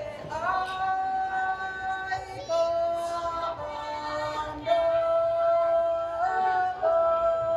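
Music: a high voice singing a slow melody in long held notes, moving to a new pitch every second or two.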